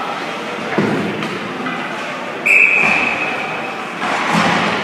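A referee's whistle: one short, sharp blast about halfway through, echoing in the ice rink over steady arena background noise.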